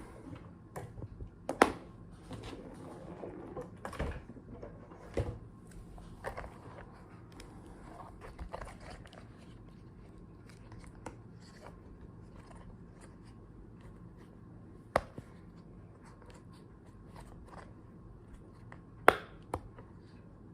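Desk sounds of homework being done: paper handling and writing, with scattered light taps. Three sharp clicks or taps stand out, about one and a half seconds in, around fifteen seconds in and near the end, and the handling is busier in the first half.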